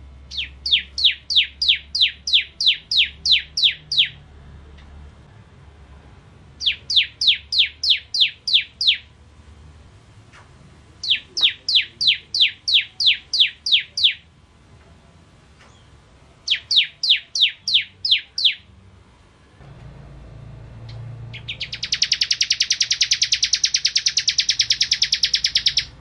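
Ciblek kristal (a prinia) singing: four bouts of quick, sharply falling notes, about four a second, each bout lasting two to four seconds. Near the end a louder, very fast buzzing trill runs for about four seconds.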